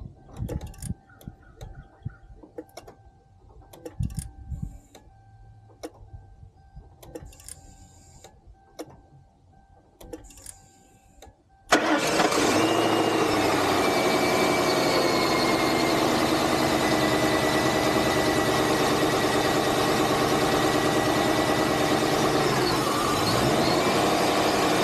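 Faint scattered clicks and knocks, then about halfway through the 2001 Lincoln Town Car's 4.6 L V8 fires up suddenly and keeps running steadily. It is the first start after an intake manifold replacement, and the engine runs.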